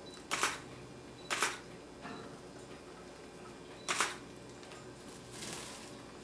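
Camera shutter clicking three times as photos are taken: two clicks about a second apart, then a third about two and a half seconds later. A soft rustle follows near the end.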